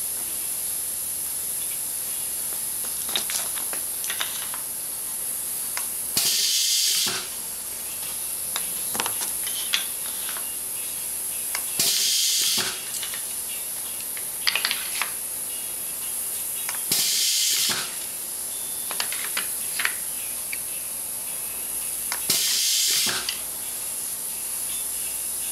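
Pneumatic V-nailer (picture-frame underpinner) cycling four times: each press of the foot pedal gives a short, loud hiss of air, about five to six seconds apart. Between cycles come light clicks and knocks of the wooden moulding being set against the machine.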